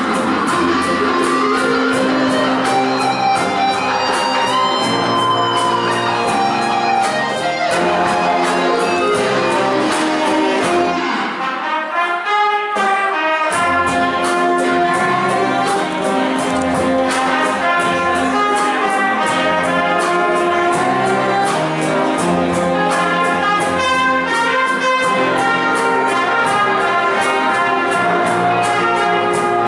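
Big band playing an instrumental passage: saxophones and brass holding sustained lines over a rhythm section with a steady beat. The bass and drums drop out briefly about eleven seconds in, then the full band comes back.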